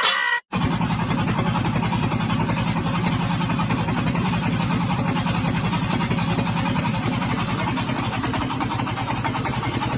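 An engine running steadily with a fast, even pulse, cutting in abruptly about half a second in.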